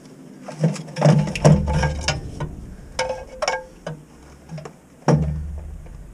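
Metal hand tools clicking and clinking against the transmission bolts under a truck, one clink ringing briefly, with a few dull knocks and thumps.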